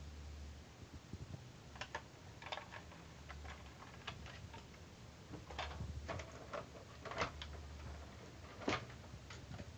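Irregular light clicks and knocks of a hard plastic RC toy truck being handled and turned over in the hand, a few sharper ones near the middle and toward the end.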